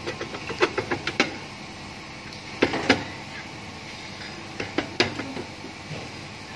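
Sharp metallic clinks and knocks from a Mitsubishi Xpander's rear brake drum as it is fitted over the brake shoes and turned by hand on the hub. They come in three clusters: several in the first second or so, a few around three seconds in, and a few about five seconds in.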